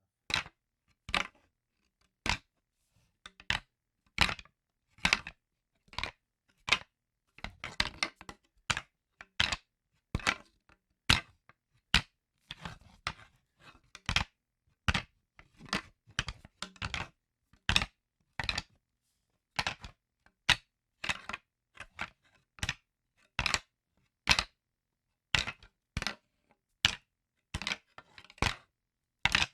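Wooden sticks making a series of short, sharp cracks, roughly one a second, with a few quicker clusters of smaller clicks.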